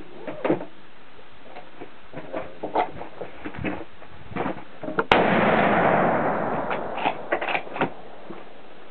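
A single shot from a Savage .30-06 bolt-action rifle about five seconds in: a sharp crack followed by about two seconds of fading echo. It is a sighting-in shot at a target. Light clicks and knocks of handling come before and after it.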